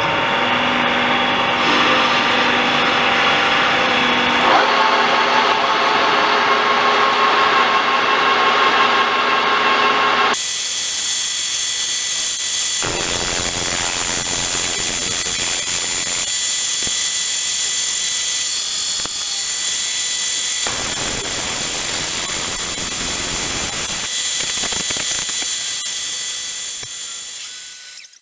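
Metal lathe running with a steady whine of machine tones, then from about ten seconds in a loud high-pitched hiss as the cutting tool rough-turns a bronze bar, changing every few seconds as the cut goes on, and stopping suddenly at the end.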